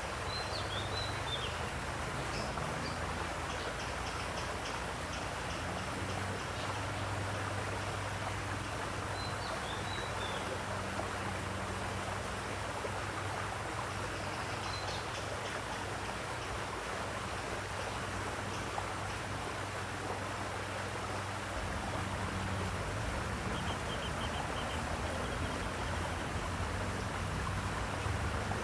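Steady rush of flowing water, with a few short bird chirps about a second in, around ten seconds and around fifteen seconds, and a quick trilling call near the end. A low steady hum runs underneath.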